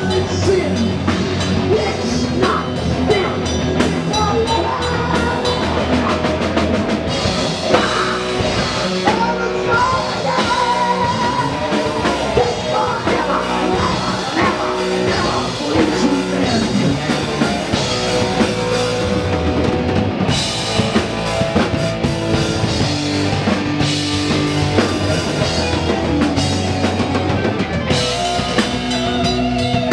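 Live heavy metal band playing an instrumental passage: a distorted electric guitar lead with bending, wavering notes over rhythm guitar, bass and a full drum kit.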